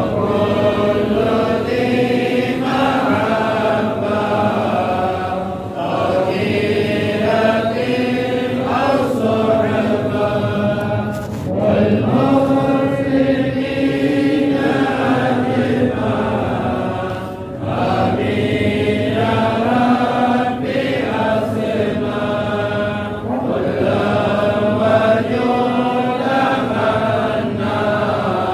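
A group of men chanting together in Islamic devotional recitation (dhikr or salawat), in long drawn-out phrases with a short break about every six seconds.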